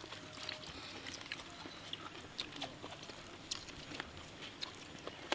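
Faint eating sounds: scattered small clicks and smacks of chewing and of fingers pulling apart grilled chicken, with a slightly sharper click near the end.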